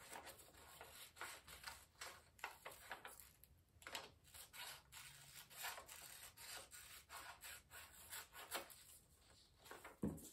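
Scissors cutting through paper, faint irregular snips with the rustle of the sheet being turned.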